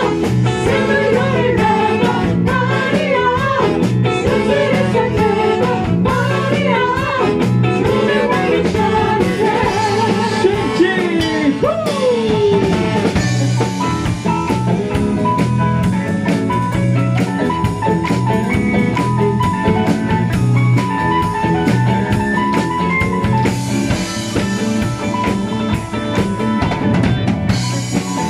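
Band music with drum kit, bass and guitar. A lead line bends up and down in pitch for roughly the first twelve seconds, then a repeated guitar figure carries on over the beat.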